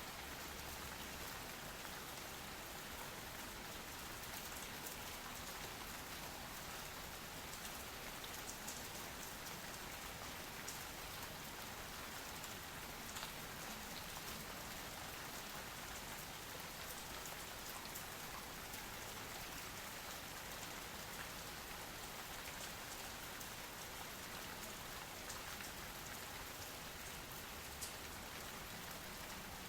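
Steady soft rain: an even hiss with scattered faint drop ticks.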